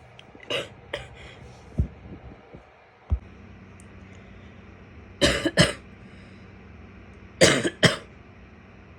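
A woman coughing in short bursts: a few coughs in the first second and a half, then two loud double coughs about five and seven and a half seconds in. Two dull low thumps fall between the first group and the rest.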